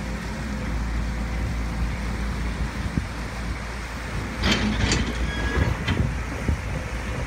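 Steady low rumble of wind on the microphone and a distant engine, with a few sharp knocks about four and a half to six seconds in.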